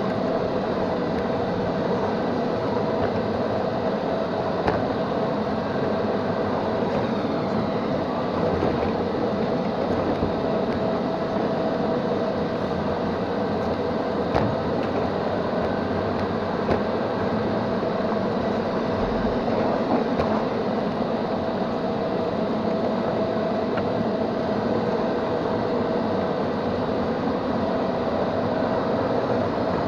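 Neato XV-21 robot vacuum cleaner running: a steady motor whir with a constant hum, and a few faint clicks.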